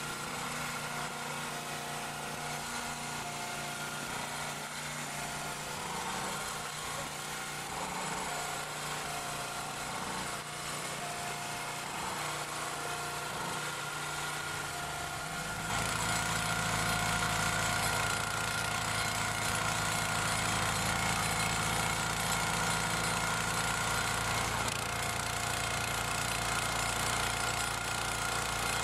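Log splitter's 6.5 PS OHV single-cylinder petrol engine running steadily to drive the hydraulic pump. About halfway through it gets louder and fuller in the low end and stays that way.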